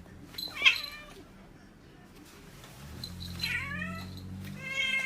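A cat meowing: a short call under a second in, then a longer call falling in pitch, and another near the end.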